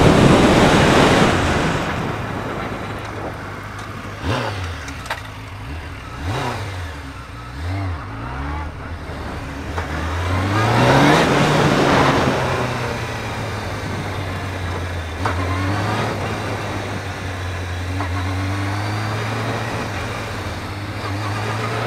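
Honda CBR600F3 sport bike's inline-four engine from the rider's seat: wind rushing over the microphone at first, then a few quick throttle blips, a rise in revs as it pulls away about ten seconds in, and a steady low-speed run with small throttle changes.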